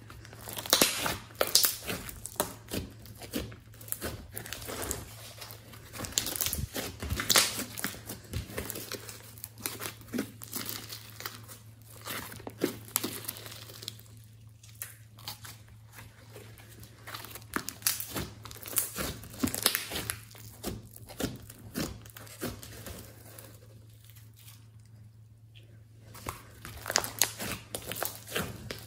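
Thick, glossy slime squeezed, folded and stretched by hand, giving irregular sticky crackles and pops, with a couple of quieter spells in between.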